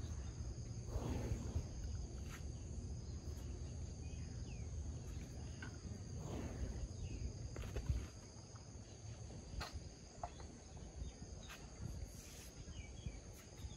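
Steady, high-pitched chorus of insects holding two even tones. A low rumble underneath stops about eight seconds in. A few soft knocks and rustles come now and then.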